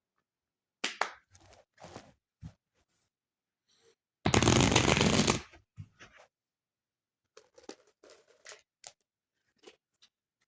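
Tarot cards being handled and shuffled: a few quick flicks and taps, then a loud riffle lasting about a second near the middle, then lighter card handling.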